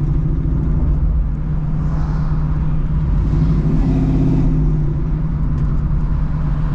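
Car engine and exhaust running steadily with a pulsing rumble, swelling a little around the middle.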